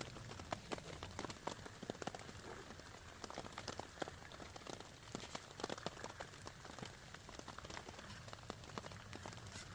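Steady rain falling, with many sharp, irregular raindrop hits on a nearby surface.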